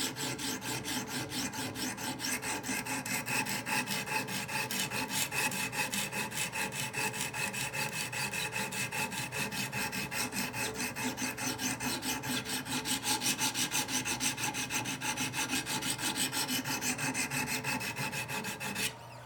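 Diamond stone of a Wicked Edge guided sharpener scrubbing a clamped knife blade in rapid back-and-forth strokes, about three a second, raising a burr on the second side of the edge. The strokes stop abruptly near the end.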